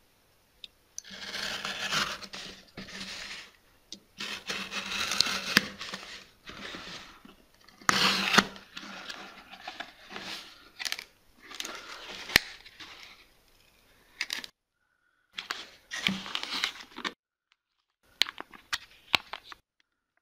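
Utility knife slitting the tape on a small cardboard mailing box, then the cardboard flaps scraping and rustling as the box is opened. The sound comes in several bursts, with sharp clicks among them.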